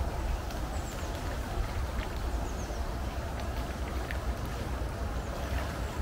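Lake waves washing against the shore rocks: a steady rushing with a low rumble, and a couple of faint high bird chirps early on.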